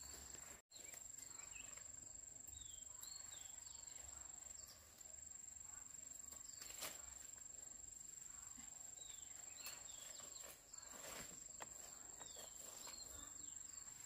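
Faint outdoor ambience: insects keep up a steady high-pitched trill, with short bird chirps now and then and a few light clicks.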